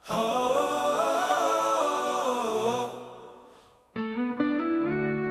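Playback of an AI-generated song: a humming a cappella choir sings a wavering line and fades out by about three seconds in. About four seconds in, a different passage of music with sharply struck, sustained notes starts abruptly.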